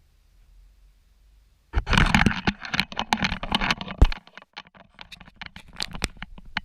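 Metal tools and parts being handled, clattering and clicking: a dense burst of knocks about two seconds in that lasts around two seconds, then scattered clicks.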